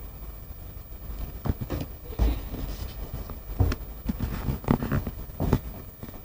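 Irregular knocks and rustling over a low rumble: a phone being moved and its microphone rubbed against cloth, with a few sharper thumps about two seconds and four to five seconds in.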